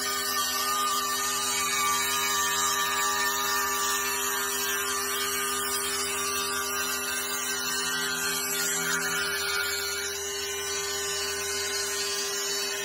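DIY CNC milling machine facing a block of hard desert ironwood: a steady spindle hum under the dense high hiss of the cutter shearing the wood. It gets slightly quieter about ten seconds in.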